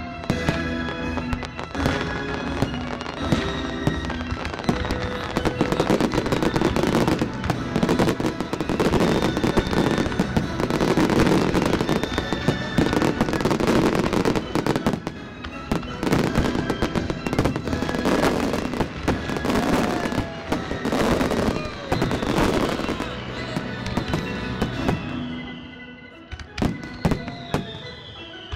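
Fireworks display shells bursting in rapid, dense succession over a music soundtrack. Near the end the bursts thin out and the sound drops in level.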